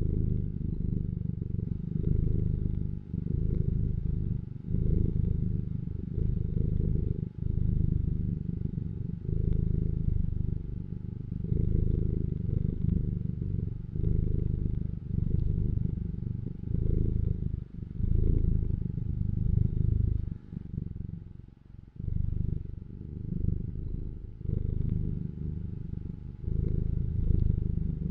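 Domestic cat purring close to the microphone, a low continuous rumble that swells and fades every couple of seconds with the cat's breathing.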